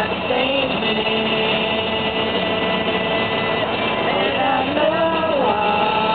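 Steady road and engine noise inside a moving car's cabin, with a few held tones that slide up and down over it.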